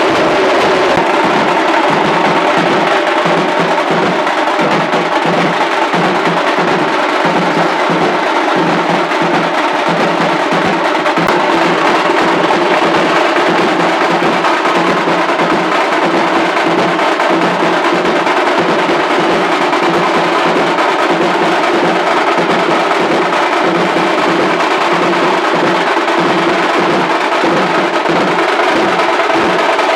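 Music with a steady, driving drum beat.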